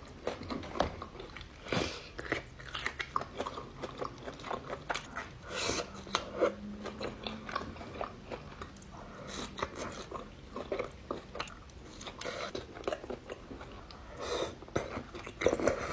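Close-up eating sounds: a person biting and chewing food, an irregular run of short crunchy clicks with a few louder bites.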